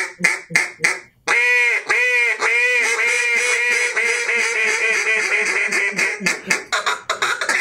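Duck call blown in a calling sequence: a few short quacks, then three long drawn-out quacks, then a fast run of shorter quacks that keeps going.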